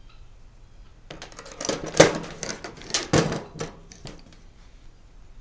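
Clicks and clatter of metal hand tools and plug parts being handled, starting about a second in, with two louder knocks about two and three seconds in, then stopping about four seconds in.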